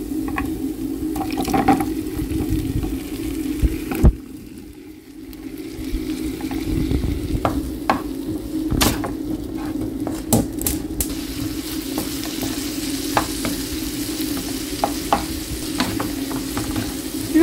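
Wooden spatula stirring and scraping through hot coconut oil in a nonstick pan, the oil sizzling, first over fried shallots, garlic and curry leaves and then over boiled Chinese potato (koorka) slices. A loud knock about four seconds in is followed by a brief quiet spell, and sharp taps of the spatula against the pan follow, over a steady low hum.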